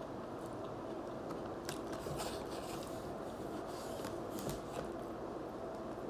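Close-up eating sounds: bites and chewing of loaded fries, with a few short crunches and clicks scattered through, over a steady faint hum.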